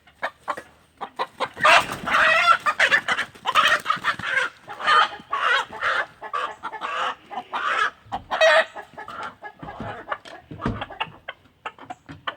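A chicken squawking and clucking over and over, loud and dense for most of the stretch, then thinning out to scattered short clucks with a few dull low thumps near the end.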